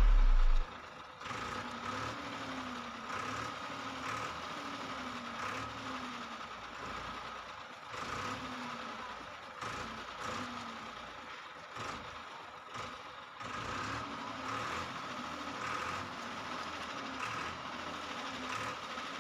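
A machine running steadily, with a wavering hum that rises and falls about once a second, and scattered clicks and knocks.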